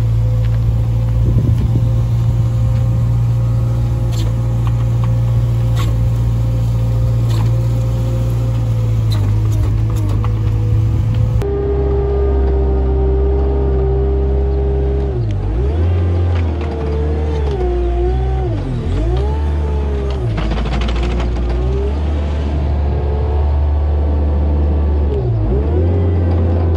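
A compact articulated loader's engine runs under load as the loader pushes silage with a front blade. The engine note is steady at first. A little under halfway through the sound changes abruptly, and from then on its pitch rises and falls repeatedly as the revs vary.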